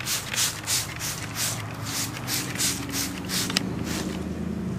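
Hand-held trigger spray bottle pumped over and over, short hissing sprays about three a second, stopping about three and a half seconds in with a click. A low steady hum comes in underneath in the second half.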